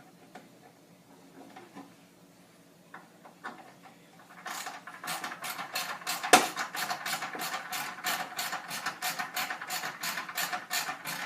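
Ratcheting screwdriver clicking as it drives a screw home, about three to four clicks a second from about four and a half seconds in, with one louder click near the middle. A few faint handling taps come before it.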